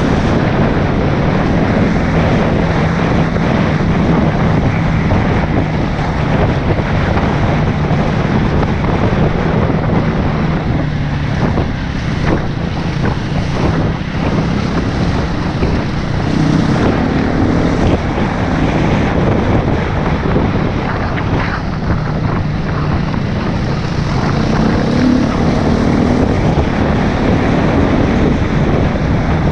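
Husqvarna FE 350 enduro motorcycle's single-cylinder four-stroke engine running along a dirt trail, heavily buffeted by wind on the microphone. The engine note holds steady for the first half, then rises and falls with the throttle later on, with a few knocks around the middle.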